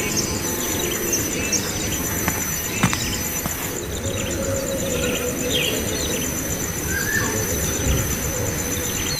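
Nestling birds' short, scattered chirps over a steady, rapidly pulsing high insect trill.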